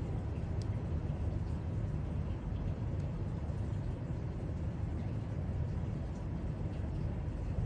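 Steady low rumbling background noise, with a couple of faint light ticks.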